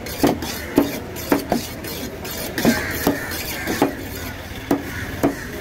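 A large fish knife chopping trevally into chunks on a wooden block: about ten sharp chops, irregularly spaced, of the blade going through fish and striking the wood.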